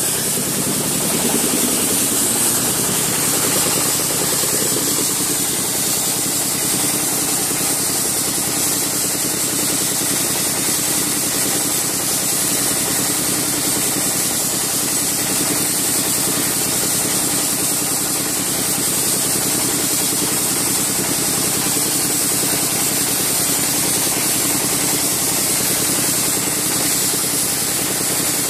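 Wet sandblasting machine running: the pump unit hums steadily, rising in pitch over the first couple of seconds and then holding, under the constant hiss of the high-pressure jet of water and sand leaving the lance.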